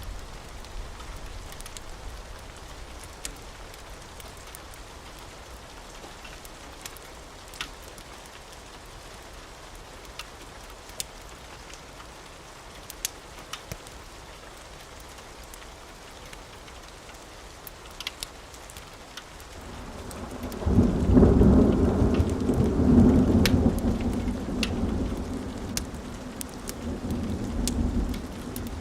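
Steady rain with scattered sharp pops. About two-thirds of the way in, a long roll of thunder swells and rumbles for several seconds, then slowly fades.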